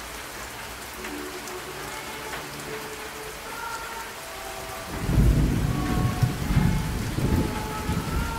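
Steady rain with held, changing tones over it; about five seconds in, a loud low rumble of thunder rolls in and keeps swelling unevenly.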